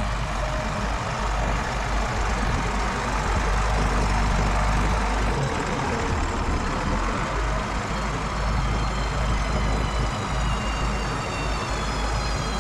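John Deere 7710's six-cylinder diesel engine running steadily as a continuous rumble, while the hitched Amazone UX 3200 Special sprayer's boom is folded hydraulically.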